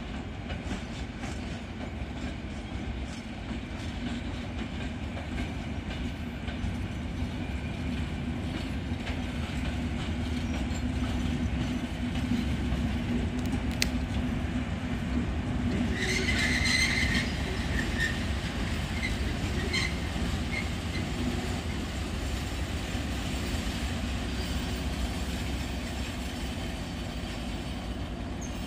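SM42 diesel shunting locomotive running at low speed, its engine a steady low rumble with a hum, growing louder toward the middle and then easing off. Its wheels squeal briefly about sixteen seconds in, with a few short squeaks after.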